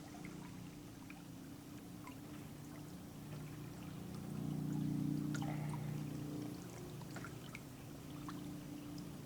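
Water trickling and dripping as a kayak is paddled, with scattered small drips and splashes. Under it runs a low steady droning hum that swells about halfway through and is the loudest sound.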